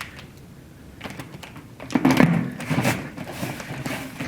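Cardboard box and contact paper being handled: rustling, crinkling and soft knocks, loudest from about two seconds in.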